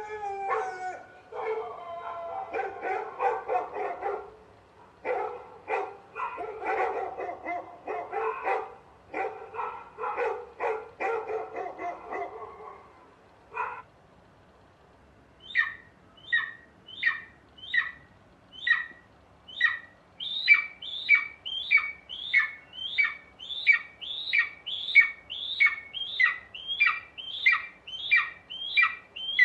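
A dog whining and yipping for about thirteen seconds. After a short pause, a squeaky toy is squeezed over and over: a train of short, falling squeaks, spaced out at first and then about one and a half a second.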